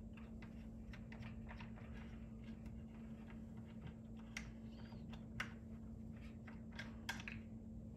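Faint, scattered small clicks and taps of hands working the plug out of the bottom cable entry of a Wallbox Pulsar Plus EV charger, with a few sharper clicks about halfway through and near the end, over a steady low hum.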